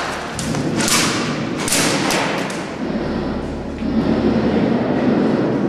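A quick run of about five sharp knocks and thuds in the first two and a half seconds, typical of airsoft shots and BBs striking the arena's wooden walls, then a low rumble of movement close to the microphone.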